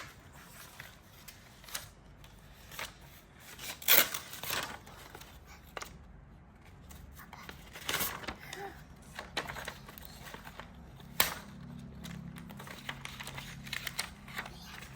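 Plastic toy track pieces and packaging being handled and fitted together: scattered clicks, knocks and rustles, the loudest a sharp knock about four seconds in.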